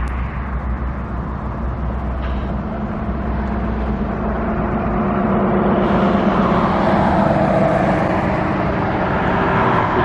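A motor vehicle's engine running nearby: a steady low rumble with a pitched engine note that grows louder over the second half, as if the vehicle is drawing closer.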